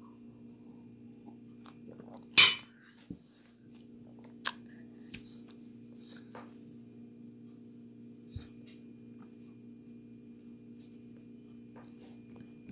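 A drinking glass set down on a table with a sharp clink about two and a half seconds in, followed by a few small clicks and taps over a steady low hum.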